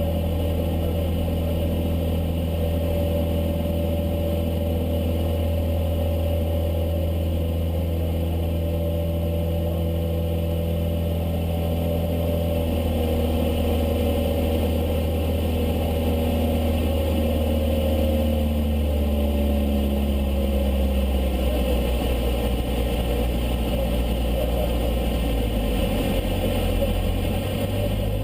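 Cessna 152's four-cylinder Lycoming O-235 engine and propeller droning steadily in flight; partway through the engine note changes pitch and settles at a new steady note near the end, as power or airspeed changes during a manoeuvre.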